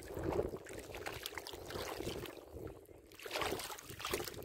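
Shallow floodwater running over the earthen ridges (ails) of a flooded field, an uneven watery noise that swells and fades.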